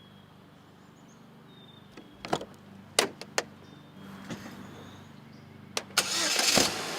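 Car door handling: several sharp clicks and knocks, then a short loud rushing sound near the end.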